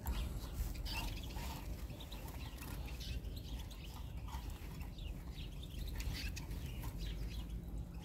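Faint, scattered chirps of small songbirds, over a low steady rumble.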